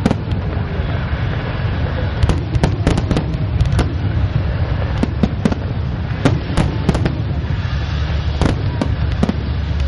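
Aerial fireworks bursting in quick succession: many sharp bangs and cracks, several a second at times, over a continuous low rumble of distant booms.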